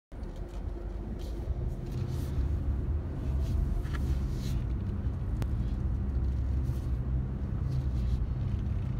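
Car engine and tyre noise heard from inside the cabin while driving through a concrete parking ramp: a steady low hum, with a single sharp click about five seconds in.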